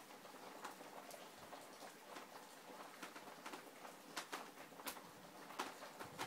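Heavy rain falling, faint: a steady even patter with many irregular louder drops ticking.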